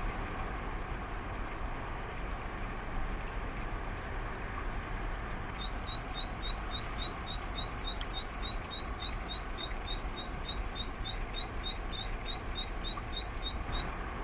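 Zitting cisticola singing a steady run of short, high, thin "hi-hi-hi" notes, about four a second, starting about five and a half seconds in, over a constant hiss of falling rain.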